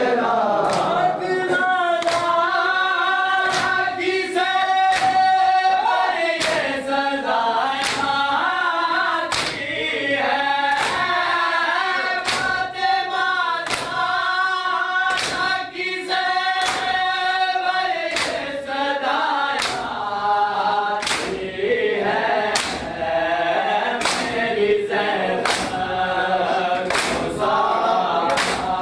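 Mourners chanting a noha together while beating their chests in unison (matam): a sharp hand-on-chest slap about every three-quarters of a second under the sung lament.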